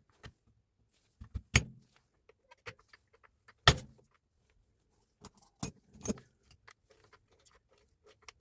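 Metal parts and hand tools clinking and knocking as they are handled, a handful of sharp separate knocks among fainter small clicks, the loudest about three and a half seconds in.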